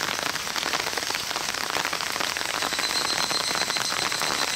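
Heavy thunderstorm rain pouring down steadily: a dense patter of countless drops hitting surfaces.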